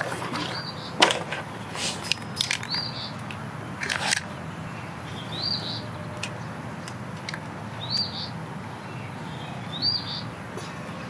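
A bird repeats a short chirp every two seconds or so. In the first few seconds there are sharp clicks and knocks of cables and a connector being handled, the loudest about a second in.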